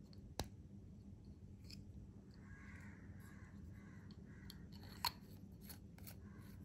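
Small clicks and handling noises as a fountain pen is put together, its ink cartridge pressed onto the section and the barrel brought on. A sharp click comes about half a second in and another about five seconds in, with fainter ticks between them over a low room hum.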